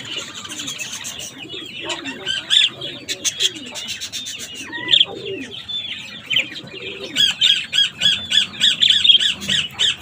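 Budgerigars chirping and squawking. From about seven seconds in comes a fast, even run of chirps, about four a second, the begging calls of newly hatched budgie chicks being fed by the hen.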